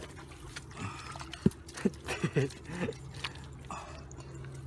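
Water dripping and splashing as hands work in shallow water, with a handful of sharp drips and splashes between about one and three seconds in, over a steady low hum.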